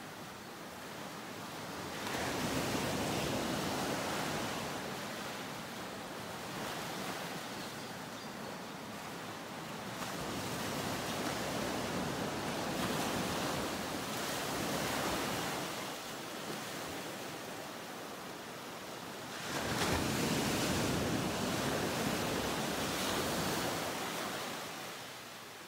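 Ocean waves washing onto a shore, each surge swelling and fading over several seconds, with no other sound.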